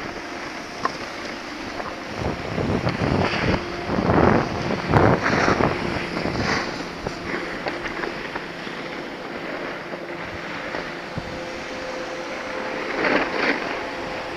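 Wind buffeting a camera microphone while moving down a ski slope, a steady rush with louder surges from about two to six seconds in and again near the end.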